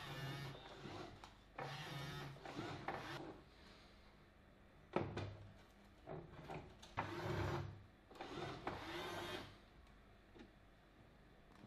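Bambu Lab AMS filament feeder motors whirring in short bursts, about five times, as spools are loaded and the unit draws each filament in. There is a sharp click about five seconds in.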